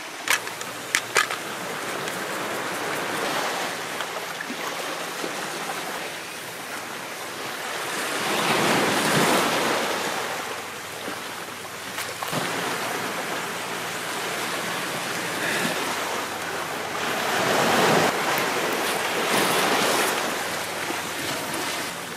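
Sea waves washing on a rocky shore, swelling louder twice as larger waves come in, with a few sharp clicks in the first second or so.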